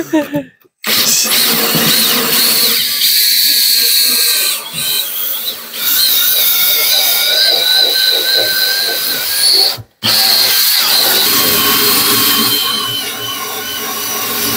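Cordless drill spinning a wire brush against the cab's steel floor pan, scouring off old sealer and crud, with a steady high whine over the scraping. It runs in long stretches and stops for a moment about ten seconds in.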